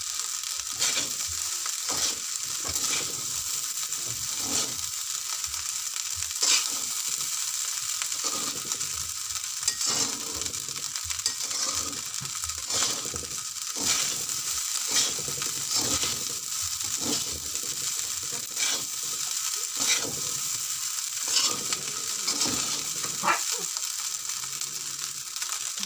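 Fried rice sizzling in an aluminium wok while a metal spatula stirs it, scraping and knocking against the pan about once a second, with a steady frying hiss underneath. The stirring stops a couple of seconds before the end.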